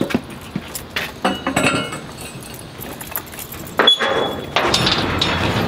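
Metal clinks and rattles of a chain and latch being undone on a rusty steel door, with short metallic rings, then a louder, rougher sustained noise from about four and a half seconds in.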